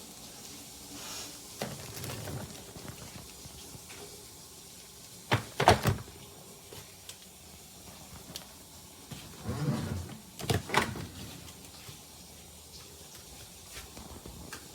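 A few sharp clunks and knocks, like hard objects being handled or set down, with duller thuds and quiet rustling between; the loudest knocks come about halfway through and again about two-thirds of the way in.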